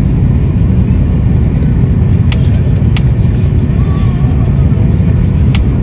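Steady, loud low rumble of an Airbus A330 airliner heard from inside the passenger cabin, with a few sharp clicks along the way.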